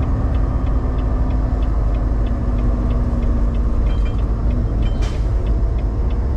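Steady rumble of a semi-truck's engine and road noise inside the cab while descending a steep downgrade. A light tick repeats about three times a second, and there is a short hiss about five seconds in.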